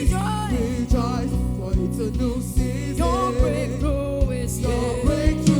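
Live gospel worship music: singers holding and bending long notes over a band with bass and drums keeping a steady beat.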